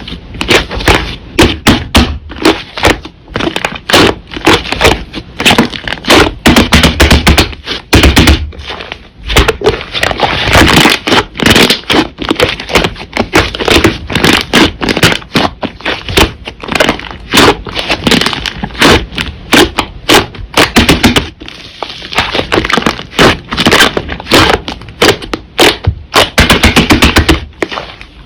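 Slime being squeezed, pressed and stretched by hand, making rapid, crackling pops and clicks that vary in density throughout.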